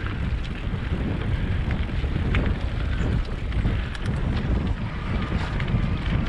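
Wind buffeting the microphone during a ride: a steady low rumble with a few faint scattered ticks and rattles on top.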